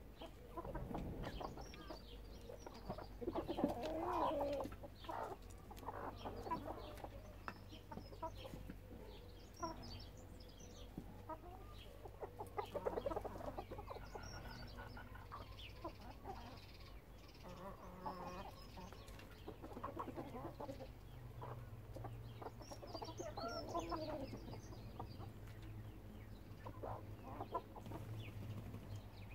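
A flock of backyard hens and roosters clucking on and off, in repeated short calls, with a few higher chirps mixed in.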